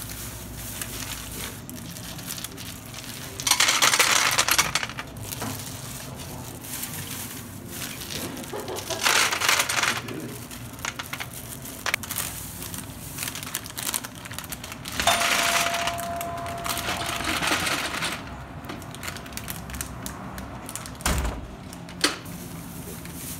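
Plastic shopping bag and foil packets of gumballs rustling and crinkling in several bursts. Near the end, one sharp clack as gumballs are poured into the gumball machine's globe.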